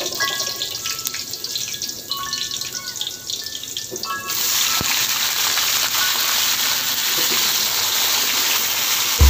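Garlic, onion and ginger crackling in hot oil in a wok; about four seconds in, wet raw squid goes into the oil and the frying turns into a loud, steady sizzle.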